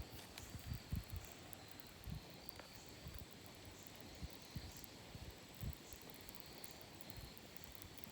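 Quiet creekside ambience: faint, high insect chirping running steadily, with a few soft low thumps.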